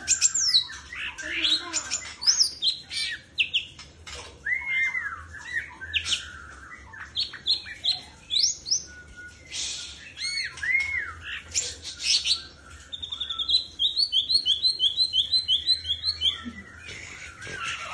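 Greater green leafbird (cucak ijo) singing a varied song of whistled notes that rise, fall and arch, mixed with harsher squawky calls. Near the end comes a fast run of repeated notes, about four a second.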